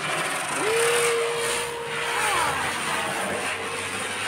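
Ground firework hissing steadily as it sprays sparks, with a thin steady whistle-like tone starting about half a second in and sliding down after a couple of seconds.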